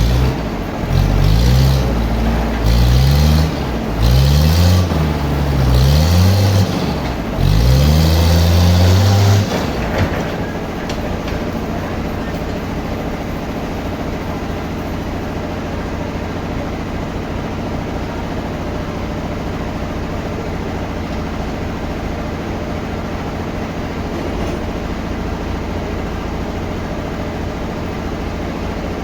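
Sawmill machinery running. In the first ten seconds its engine note swells and sinks about five times, with a hissing rasp on each surge. After that it settles into a steady hum.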